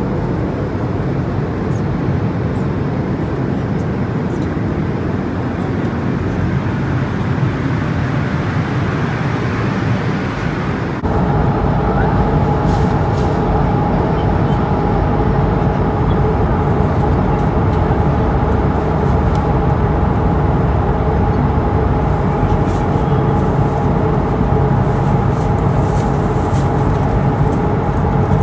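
Steady rushing cabin noise of an Airbus A220-300 in flight, its Pratt & Whitney geared turbofan engines running. About eleven seconds in the sound gets louder, and two steady droning tones from the engine appear over the rush, heard from a window seat beside the engine.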